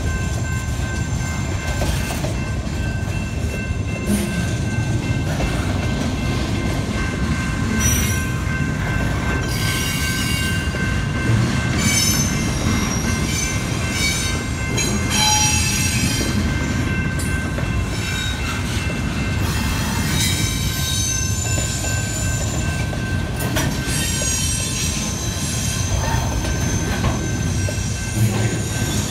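Double-stack intermodal freight train's container cars rolling past: a steady rumble of wheels on rail, with high-pitched wheel squeals coming and going every few seconds.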